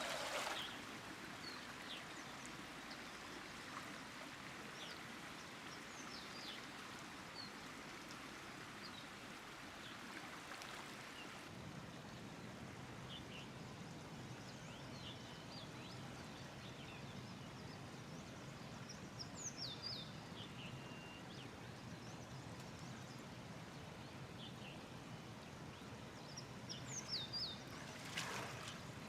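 Steady rush of flowing river water with scattered short bird chirps, and brief louder bursts of noise right at the start and again near the end.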